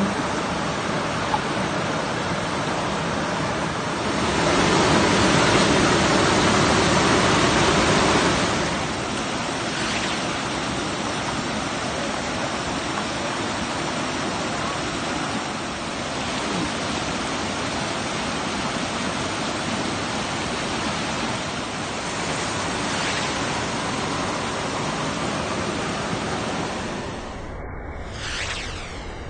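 Steady rush of a stream and small waterfall, louder for about four seconds starting around four seconds in.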